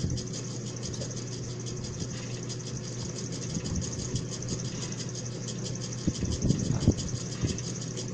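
A steady low mechanical hum runs under the scene. About six seconds in comes a cluster of knocks and rattles from the camera being handled.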